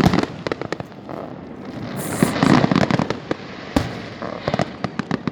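Fireworks going off: a rapid run of bangs and crackling bursts, with one single sharp bang a little before four seconds in.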